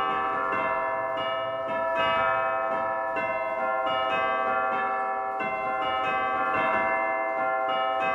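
Church bells ringing in a continuous peal: bells of different pitch struck one after another, about two strikes a second, their tones ringing on and overlapping.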